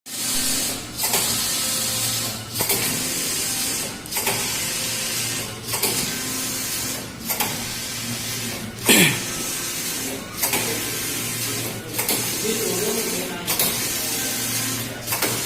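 Computerised flat knitting machine running, its carriage sweeping across the needle bed with a steady rushing noise and low hum, reversing about every one and a half seconds with a brief dip and knock at each turn. A short downward-gliding sound is heard about nine seconds in.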